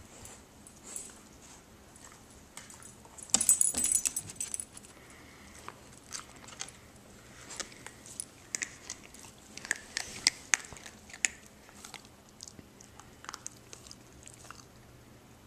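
Puppy crunching and chewing dry kibble, with scattered sharp clicks of the food pieces. A loud rattling burst about three seconds in.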